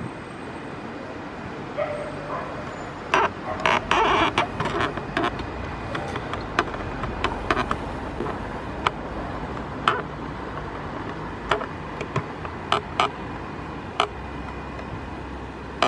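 Irregular sharp clicks and taps over a steady low background rumble, most crowded a few seconds in: handling noise on a compact camera's built-in microphone.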